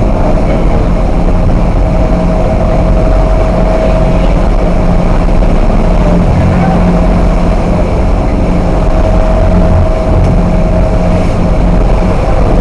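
Passenger vessel's engines running steadily under way: a loud, even drone with a thin whine that swells and fades twice.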